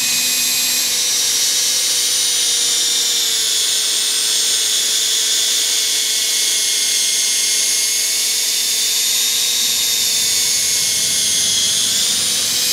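Electric drill with a foam polishing pad running steadily at low speed, buffing metal polish into an oxidised plastic headlight lens. A steady motor whine whose pitch sags slightly now and then as the pad is pressed on the lens.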